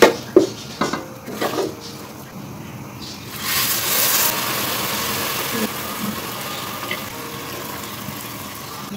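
A wooden spoon scrapes and knocks against a nonstick pot as rice and lentils are stirred. Then, about three and a half seconds in, water is poured onto the sautéed grains: loudest as it first hits the hot pot, then a steady pour.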